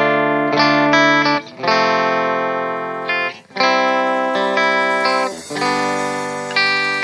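Instrumental guitar intro of a reggae song: guitar chords struck and left to ring, changing every second or so, with brief gaps between phrases.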